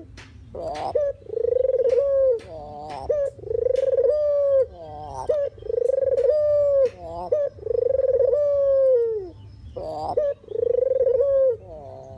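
Puter dove (collared dove) cooing: a repeated phrase of long, low coos, one about every two seconds, each falling away at its end, with short wavering notes between them.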